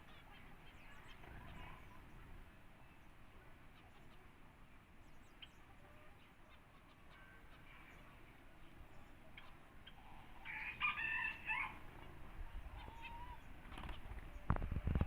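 A rooster crows once, about ten seconds in, over faint scattered bird chirps. Just before the end a quick run of soft thumps begins.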